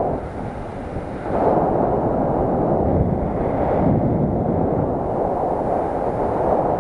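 Airflow rushing over the microphone of a camera carried by a paraglider pilot in flight: a loud, low rushing that eases about a second in, then comes back.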